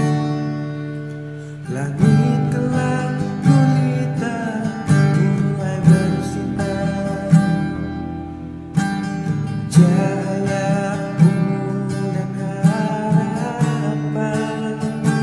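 A song played over the footage: strummed acoustic guitar with a singing voice.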